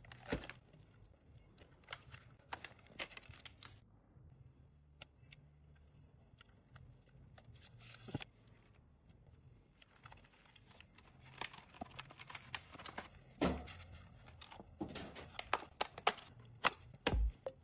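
Scattered clicks and taps with short bursts of crinkling plastic, as from PC parts and their packaging being handled, over a faint low hum.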